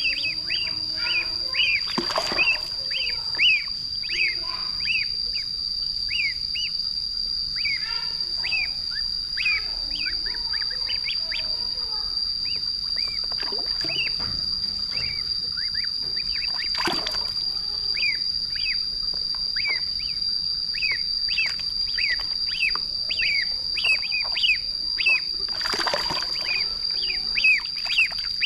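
Ducklings peeping: a run of short chirps, each falling in pitch, several a second, with a pause of a few seconds midway. Three sharp knocks or splashes cut in, about two seconds in, about halfway through and near the end, over a steady high tone.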